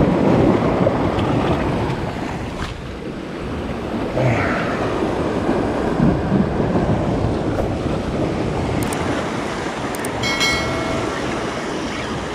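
Sea waves surging and washing over shore rocks, with wind buffeting the microphone. Near the end, a couple of clicks and a short ringing bell-like tone: the sound effect of a subscribe-button overlay.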